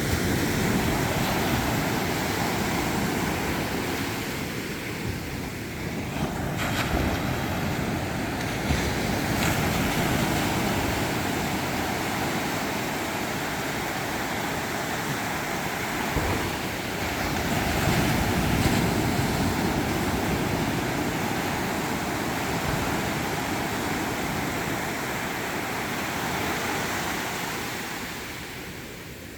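Sea surf washing onto a beach: a steady rush of breaking waves that swells louder and eases off every several seconds.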